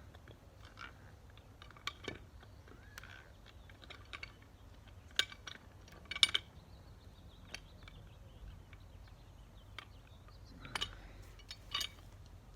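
Aluminum pipe wrench clicking and clinking on a sprinkler pipe fitting as it is worked in short turns and repositioned, a scattering of sharp metallic knocks with the loudest pair about halfway through.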